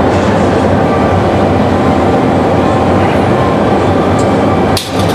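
Loud, steady industrial roar of a glassworks hot shop, with a constant hum, briefly dropping away near the end.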